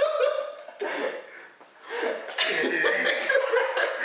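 Young men laughing, with a short break in the laughter in the middle.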